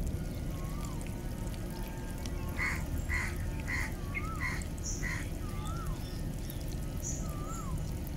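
Birds calling: a quick run of six short, sharp calls about half a second apart in the middle, and whistled notes that rise and then fall, repeated every second or two. Underneath is a steady low rumble.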